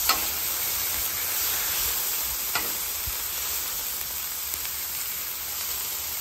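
Ground beef and diced onion and bell peppers sizzling steadily on a hot Blackstone flat-top griddle. A metal spatula scrapes and taps the steel cooktop briefly a couple of times as it moves the vegetables.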